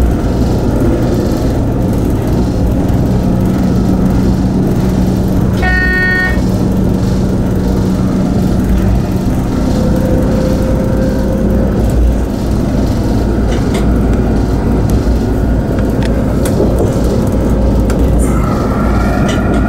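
Regional train running, heard from just behind the driver's cab: a steady low rumble of engine and wheels on rail. A short high beep sounds about six seconds in, and a faint whine rises near the end.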